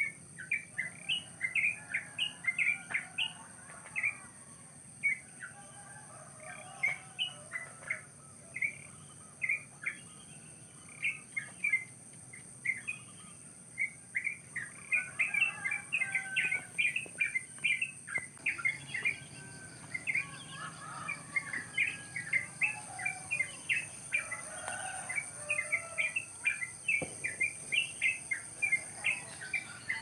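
Wild birds chirping: many short, sharp chirps in quick succession, with softer chattering calls in patches and a steady high hiss underneath.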